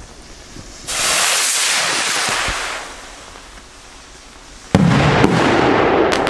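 Large firework rocket launching with a rushing hiss that lasts about two seconds and fades. Nearly four seconds later comes a single loud bang as it bursts overhead, followed by a long rolling echo and a few sharp cracks.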